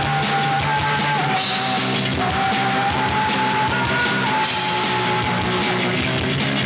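Rock band music with a drum kit and guitar, a long held melody line sliding between notes on top.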